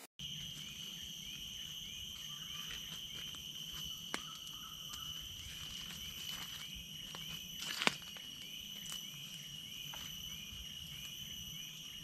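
Tropical forest insects calling steadily at a high pitch, with a short chirp repeating about twice a second and a few sharp clicks, the loudest about eight seconds in.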